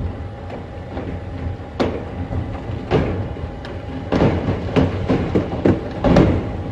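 Fireworks set off by a burning firework factory: scattered single bangs, then from about four seconds in a rapid barrage of bangs and crackles, over a steady low rumble.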